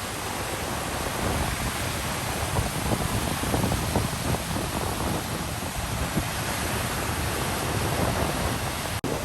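Sea waves washing onto the shore in a steady rush, with wind buffeting the microphone in gusts. The sound drops out for an instant near the end.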